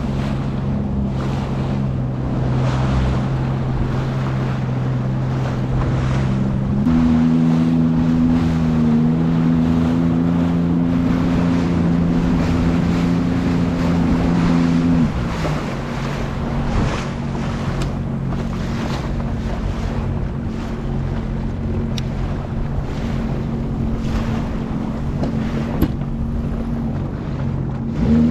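Sea-Doo FishPro Sport 170 personal watercraft's Rotax three-cylinder engine running at trolling pace. Its note steps up about seven seconds in and drops back down about halfway through, over wind on the microphone and water noise.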